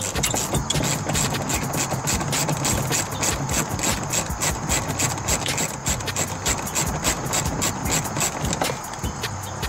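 Power tool running on the seized upper mounting bolt of a seat belt assembly: a steady motor hum with rapid, irregular clicking.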